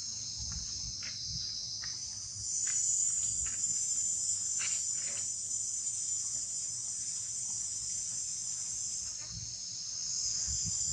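Steady high-pitched chorus of insects, growing louder a couple of seconds in, with a few faint clicks.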